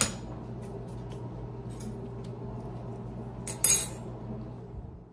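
Cutlery clinking on a ceramic plate: a sharp clink at the start, a few light ticks, and a louder, ringing clink about three and a half seconds in, over a steady low hum.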